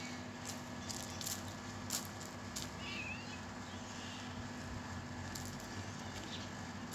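Faint scattered crunches of footsteps and paws on loose gravel over a steady low hum, with one faint short chirp about three seconds in.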